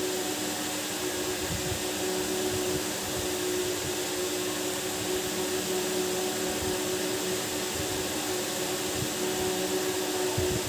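A steady machine-like whirring hum with hiss, unchanging throughout.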